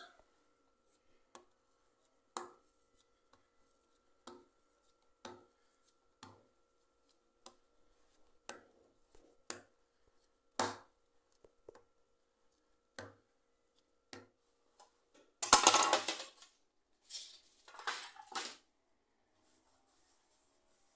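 A kitchen knife tapping sharply on a granite countertop as bread dough is cut into roll-sized pieces, about one click a second. About fifteen seconds in comes a louder scraping clatter, then a softer rustle, and a faint steady hum stops.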